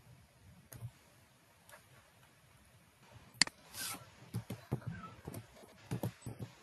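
Computer keyboard keys clicking as a query is typed and corrected, irregular keystrokes that come thicker in the second half. A sharper click a little over three seconds in is followed by a brief hiss.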